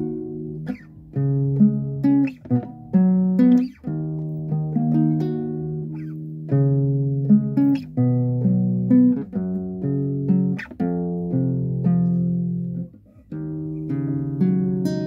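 Guitar fingerpicked in repeating broken-chord figures, the notes ringing on with a chord change every second or two and a short break near the end.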